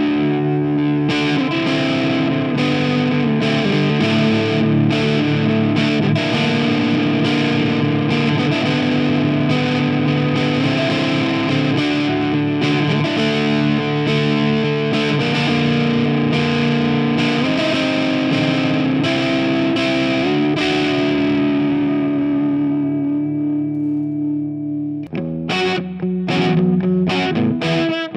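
Stanford Fleetwood CR electric guitar played through distortion, with held chords changing every second or so. Near the end one chord is left to ring and fade, then choppier rhythmic strumming starts.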